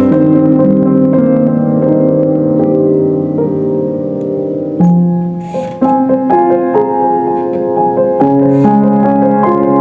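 Slow instrumental piano music, held chords changing about once a second, with a brief lull and a new chord about five seconds in.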